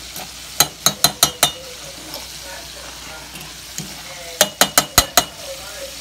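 A spoon stirring a simmering pot of red beans and rice, with two quick runs of about five sharp clinks of the spoon against the pot, about a second in and again near the end, over a steady bubbling hiss.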